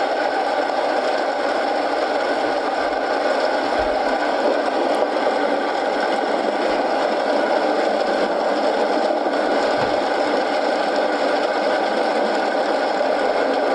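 Steady rain mixed with a crackling wood fire in a fireplace, with a few soft low thumps.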